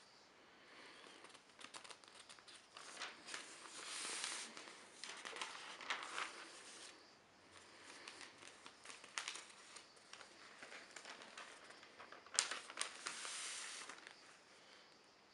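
Newspaper pages rustling and crinkling close to the microphone as a page is turned and the paper handled, with a few sharp crackles. The rustling comes in two main stretches, one a few seconds in and a shorter one near the end.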